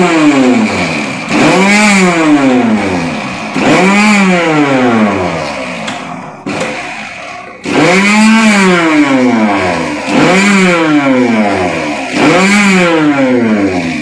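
Kenstar mixer grinder with a steel jar blending curd and sugar, switched on in short pulses about every two seconds. Each pulse has a loud whine that rises as the motor spins up and falls as it coasts down. It is pulsed, not run continuously, so the curd does not churn into butter.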